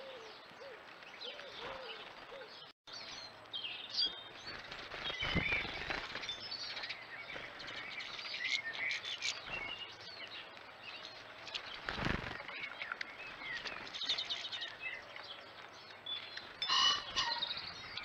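Small finches chirping and twittering in short, scattered calls, with a couple of dull thumps about five and twelve seconds in.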